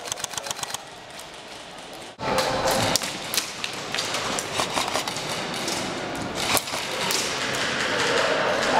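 Airsoft gun firing on full auto, a rapid even run of shots that stops under a second in. After a short lull the sound turns louder, with scattered sharp knocks and pops from the ongoing firefight.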